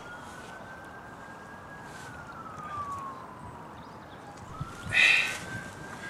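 A faint wailing siren of an emergency vehicle, its pitch slowly rising, holding and falling, twice over. About five seconds in comes a short loud burst of voice.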